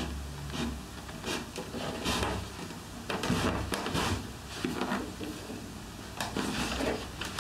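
Hand tool worked by hand along the edge of an elm board: a series of irregular rubbing, scraping strokes on the wood.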